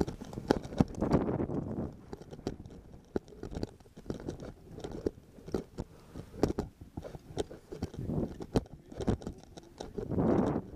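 Crampon-shod mountaineering boots crunching step by step in snow, in an uneven rhythm, with swells of wind on the microphone about a second in and again near the end.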